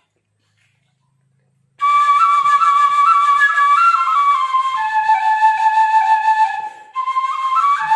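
Tibetan lingbu bamboo flute playing a slow melody. It is silent for about the first two seconds, then plays a long phrase whose notes step downward. A short breath comes near the end, and then a new phrase begins.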